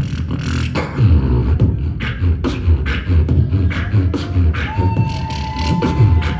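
Live beatboxing through a handheld microphone and PA: deep bass kicks and sharp snare and hi-hat clicks in a driving rhythm. A steady high held note joins in about five seconds in.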